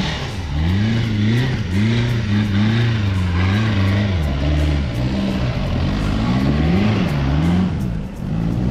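Off-road 4x4 engine revving up and down repeatedly, its pitch rising and falling about twice a second, as the driver works the throttle over an obstacle.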